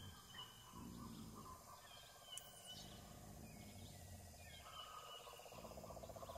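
Near silence: faint, indistinct background sound with no clear event.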